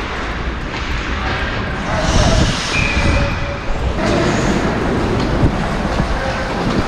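Ice hockey skating through a helmet-mounted camera: skate blades scraping and carving the ice under a steady low rumble of wind on the microphone.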